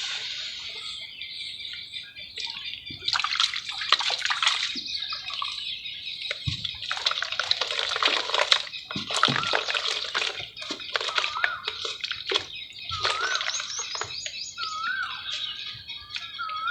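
Red clay crumbling and fizzing in water, a wet crackling with sloshing that swells and fades.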